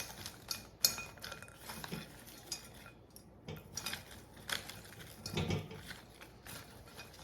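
Dried potpourri pieces, including bits of wood, clattering and clinking into a bowl as they are poured and shifted by hand, in scattered irregular clicks.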